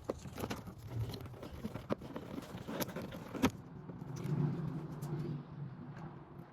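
Hand work on a car's trunk: a series of sharp clicks and knocks from parts and tools being handled, and a low hum lasting about a second and a half past the middle.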